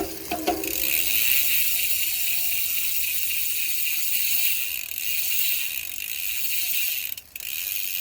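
Used Hope Pro 4 rear hub freewheeling as the wheel is spun: a few clicks at the start, then a steady, loud, high-pitched buzz of the freehub pawls running over the ratchet ring. It cuts out briefly about seven seconds in, then resumes.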